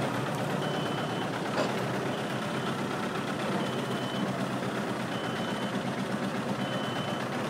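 Manitou telescopic handler's reversing alarm beeping about every second and a half, each a single high beep, over the steady running of its diesel engine. A sharp knock about a second and a half in.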